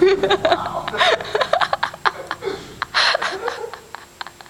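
Several people laughing and chuckling, with scattered light taps, dying away toward the end.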